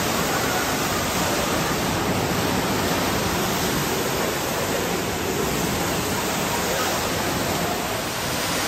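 Steady rush of water falling from an indoor water feature into a pool below.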